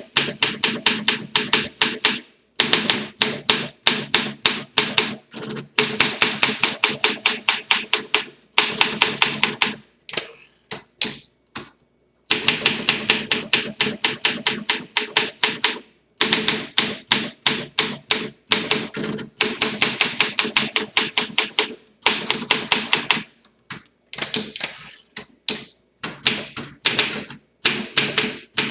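A 1957 Olympia SM3 DeLuxe manual portable typewriter being typed on. Quick runs of key strikes come several a second, broken by short pauses, with a few slower, scattered strokes in the middle. The machine is freshly restored, with new rubber on the platen.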